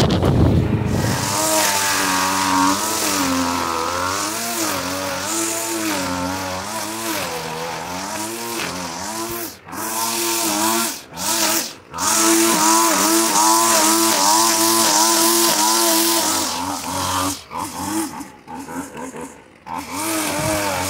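A small two-stroke string trimmer (weed eater) running while cutting grass, its high engine note rising and falling as the throttle is worked. It holds steady at full throttle for a few seconds past the middle, then drops back and wavers near the end. The first second is the lower, deeper sound of a push mower engine.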